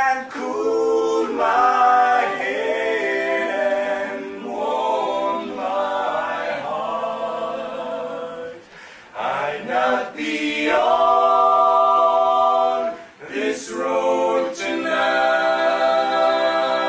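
Mixed male and female voices of a four-person a cappella group singing held chords in close harmony. The chords break off briefly twice, at about nine and thirteen seconds in, before the voices come back in together.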